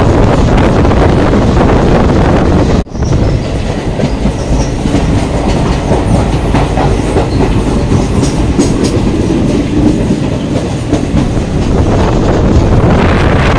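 Train wheels running over the rails with a clickety-clack. About three seconds in the sound cuts off abruptly, then resumes a little quieter.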